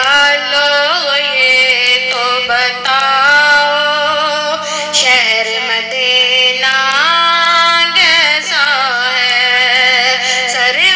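A naat sung by a high voice in long, ornamented held notes that slide between pitches, over a steady low drone.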